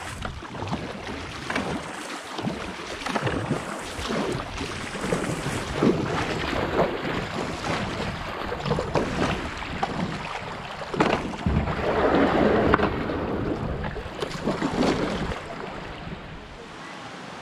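Kayak paddle strokes splashing and dipping, one after another, over the rush of a shallow rocky river riffle, with wind buffeting the microphone. The water noise swells loudest about twelve seconds in.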